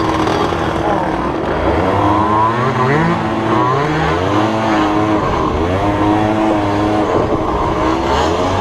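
50cc two-stroke dirt bike engine being ridden, its revs climbing and dropping several times as the throttle is worked over rough ground.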